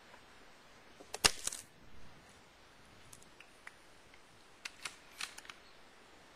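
Two clusters of sharp clicks and snaps, the louder one about a second in and another near five seconds in, with a few faint ticks between them.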